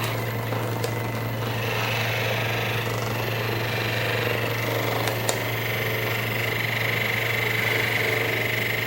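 Handheld percussion massage gun running steadily against the shoulder muscles, a rapid mechanical hammering buzz, with its higher whine growing stronger about halfway through.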